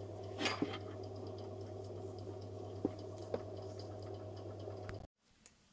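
A steady low electrical hum with a few faint clicks, cutting off abruptly about five seconds in to near silence.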